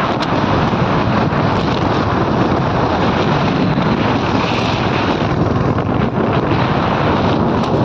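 Wind buffeting the microphone of a moving motorcycle at road speed: a loud, steady rush.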